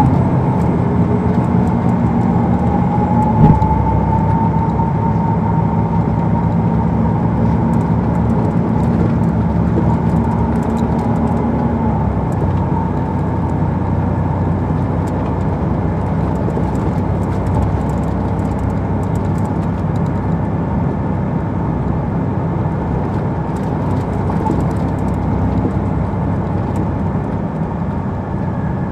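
Interior sound of a 2002 MCI D4000 coach underway, its Detroit Diesel Series 60 engine running, with a whine that rises over the first two seconds and then holds steady. A single sharp knock comes about three and a half seconds in, and the low engine note changes about twelve seconds in.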